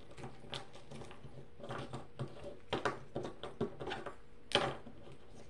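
Small metal clicks and clinks of keychain hardware, a split ring and chain, being handled and worked onto a keychain charm, irregular and scattered, with one sharper click about four and a half seconds in.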